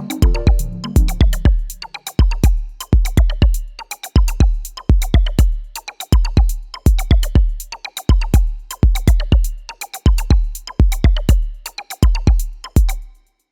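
Background electronic music with a steady, punchy drum-machine beat and deep bass, dropping out briefly near the end.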